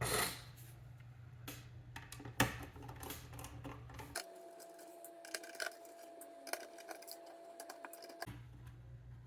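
Scattered light clicks and taps of small plastic and metal parts being handled while a ViewSonic Chromebox mini PC is taken apart, the loudest near the start and about two and a half seconds in.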